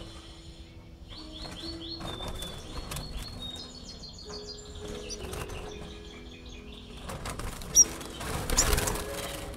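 Caged Spanish Timbrado canaries fluttering their wings as they fly between perches, with short high chirps given in quick series. There is a sharp click near 8 s, then a loud burst of wing flapping near the end.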